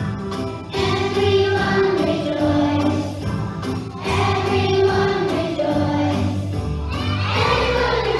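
A choir singing a Christmas song over backing music, the voices coming in about a second in and holding long notes in phrases.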